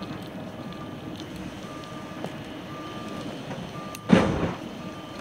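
Reversing alarm beeping about once a second, over the steady engine and road noise of the vehicle carrying the camera. A short, loud burst of noise breaks in about four seconds in.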